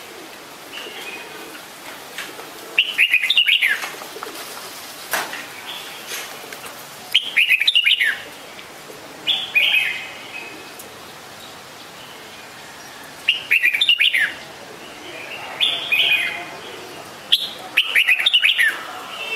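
Red-whiskered bulbul singing: short, bright whistled phrases, about six of them, each under a second and repeated every few seconds.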